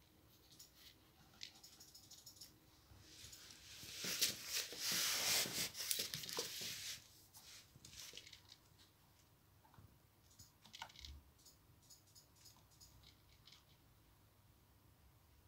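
A cat scrambling about a plush cat tree: scattered light scratches and clicks, with one loud spell of rustling and scratching for about three seconds around the middle, then faint ticks and clicks again.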